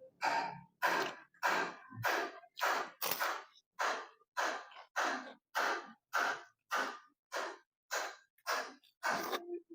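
A person breathing hard in quick, even puffs, about two a second, with about sixteen breaths in a row.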